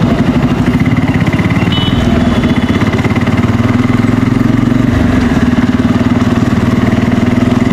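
Bajaj Pulsar N250's single-cylinder engine running steadily through its stock exhaust, its pitch holding fairly level with only slight shifts in throttle.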